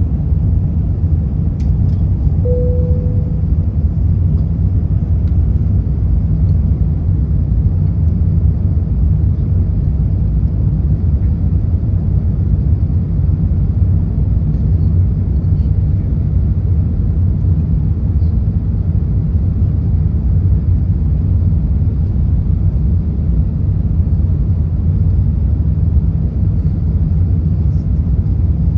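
Steady low rumble inside the cabin of an Airbus A380: the Rolls-Royce engines and airflow at an unchanging level. A brief single tone sounds and fades about two and a half seconds in.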